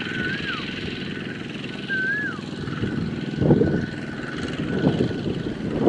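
A two-wheel walking tractor's single-cylinder diesel engine chugging steadily as it pulls a loaded trailer through a muddy field, with a couple of louder clunks about halfway and near the end. A bird whistles twice in short rising-and-falling notes, at the start and about two seconds in.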